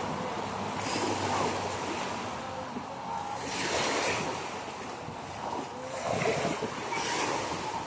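Small sea waves washing on the shore, surging three times, with wind buffeting the microphone.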